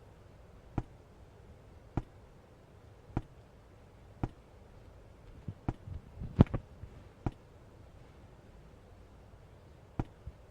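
Scattered sharp clicks and light knocks, a second or more apart, with a short flurry of them about six seconds in, over quiet room tone.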